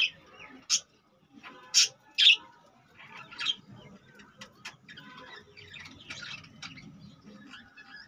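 A flock of budgerigars chirping: five loud, sharp chirps in the first four seconds over a steady, softer chatter.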